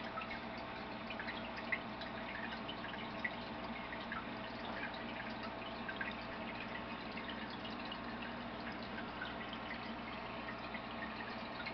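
Aquarium water bubbling and trickling, with many small drips and pops over a steady low hum from the tank's equipment.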